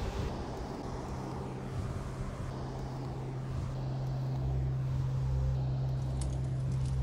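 Low, steady ambient drone: a rumbling hiss with a deep hum that settles in a few seconds in and grows heavier after about four seconds. A few faint clicks come near the end.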